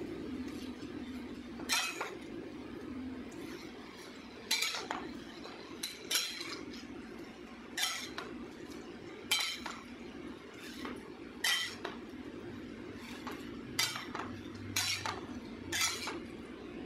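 Metal spatula clinking and scraping against a metal wok as cabbage and tofu are stir-fried, about ten sharp clinks at irregular intervals over a steady low hum.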